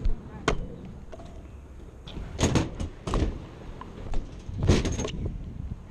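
Freestyle scooter rolling over skatepark concrete with a low rumble, broken by sharp clacks and knocks of the wheels and deck striking the ground and ledge: one about half a second in, a cluster from about two and a half to three seconds, and another near five seconds.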